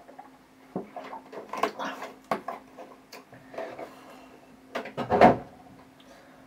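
Knocks, clicks and rustling as things are handled and set down on a table, with the loudest thump about five seconds in, over a faint steady hum.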